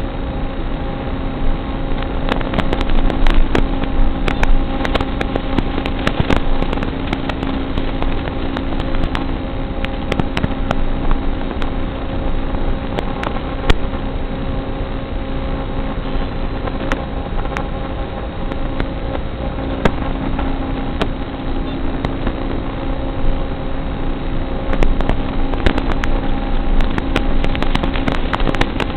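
Small electric RC car driving around: a steady motor and gear whine under a noisy hiss, with frequent clicks and knocks.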